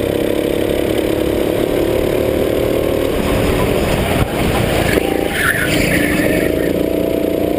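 Go-kart engine heard from on board at racing speed. About three seconds in its note drops away and breaks up through a corner, with a brief higher-pitched noise near the middle, then the engine picks up again and rises in pitch about six seconds in.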